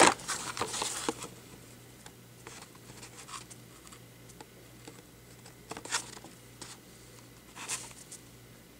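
Faint handling noise of small die-cast toy cars: scattered light clicks and rustles, busiest in the first second, then single ticks around three, six and nearly eight seconds in.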